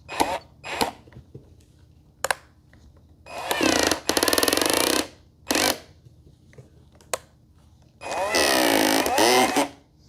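Power drill driving a screw in two bursts of under two seconds each, about three seconds and eight seconds in, its whine bending up and down over a rapid rattle as the bit skips on the screw head. A few short knocks come before the first burst.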